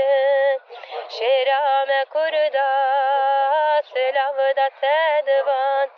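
A solo voice singing a slow, ornamented melody, holding long wavering notes with quick turns between them. There is a short break with a breathy rush about a second in.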